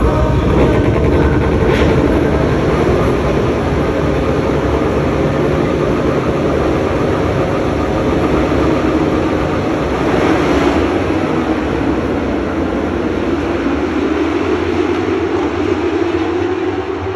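A pack of road-racing motorcycles running past on the straight, their engines blending into one loud, sustained note that swells slightly about ten seconds in and then slowly fades.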